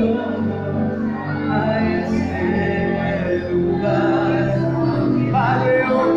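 Worship music: singing over a sustained instrumental accompaniment.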